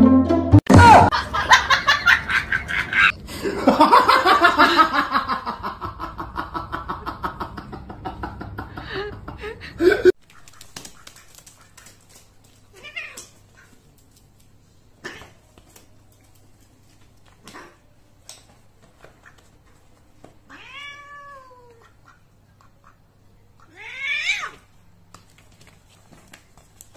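Cat yowling and meowing loudly and continuously for about ten seconds, cut off suddenly. Then comes a quieter stretch of soft knocks and two short meows, each falling in pitch.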